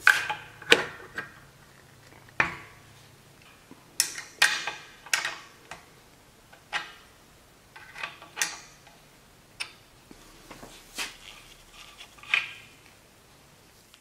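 Steel wrenches clinking against the air compressor's oil drain plug and against each other as the plug is worked loose: a series of sharp, irregularly spaced metallic clinks.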